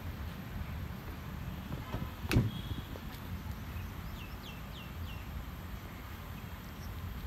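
Outdoor ambience: a low steady rumble on the microphone, one sharp thump about two seconds in, and a quick run of four short falling bird chirps around the middle.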